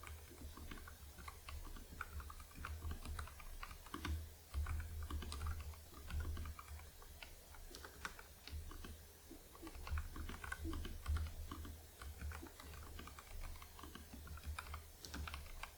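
Typing on a Nuphy Air75 mechanical keyboard with lubed Gateron Red linear switches and a tape mod: a steady, continuous run of quick keystrokes.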